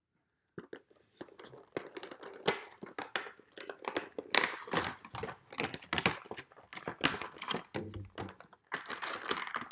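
A collectible vinyl figure's box being handled and torn open: an irregular run of crinkles, tears and knocks of cardboard and plastic packaging.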